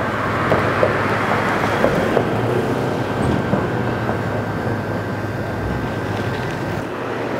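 A vehicle engine running with a steady low rumble and a thin steady whine above it, with a few light knocks in the first couple of seconds; the whine stops near the end.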